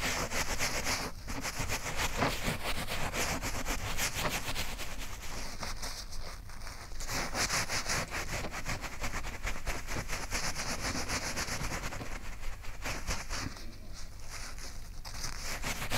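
A towel rubbing and scrubbing against carpet pile in quick, rapid strokes, soaking up puppy urine, with a couple of lighter spells between the strokes.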